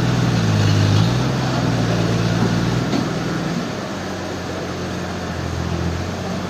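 A large engine running steadily. Its pitch rises slightly about a second in, and it eases off and gets quieter around three seconds in.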